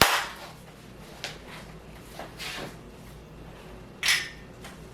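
Backdrop stand parts being handled and set down: a sharp knock at the start, a light click about a second in, then softer shuffling and another clatter near the end.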